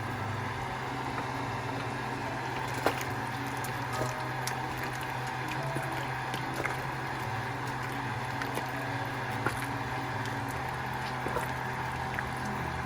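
Pot of lecho, a thick pepper and tomato stew, simmering on the stove, with small scattered pops and bubbling over a steady low hum.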